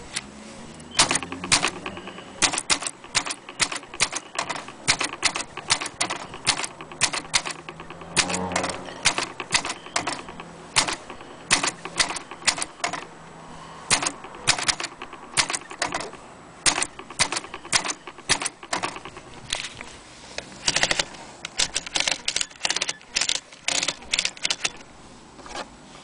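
Corona Standard manual typewriter being typed on: the type bars strike the paper in quick, irregular runs of sharp clicks with short pauses between words.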